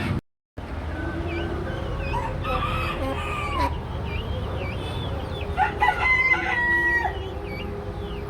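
Rooster crowing, with one long held crow in the second half, among clucks and chirps of other chickens.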